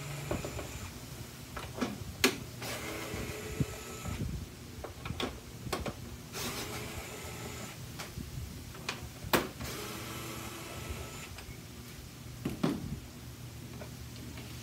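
Cordless battery screwdriver backing screws out of an air fryer's plastic housing: the motor whirs in about four short runs, with sharp clicks and knocks between them.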